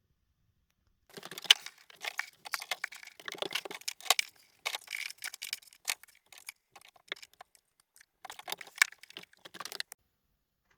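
Handling noises from about a second in: irregular clicks, taps and crinkling rustles of things being picked up, moved and set down, ending shortly before the end.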